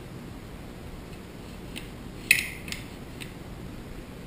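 Steel parts of an Armsan A612 shotgun clicking together during reassembly. There are a few light clicks and one sharp metallic clack with a brief ring about two seconds in.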